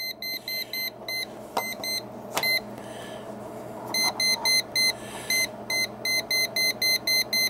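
Klein Tools non-contact voltage tester beeping rapidly, about five short high-pitched beeps a second, as it detects 117-volt mains potential on a fingertip touched to its tip. The beeping breaks off about two and a half seconds in and resumes a second and a half later.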